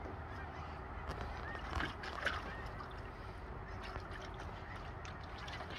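A dog moving about in a small plastic tub of water, with faint splashes and sloshing over a low steady rumble. A couple of slightly louder splashes come around two seconds in.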